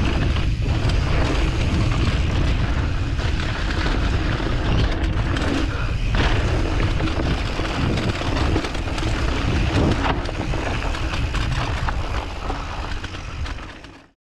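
Wind buffeting a GoPro microphone and tyres rolling over a dirt trail on a fast mountain-bike descent, with occasional knocks from bumps. The sound fades out shortly before the end.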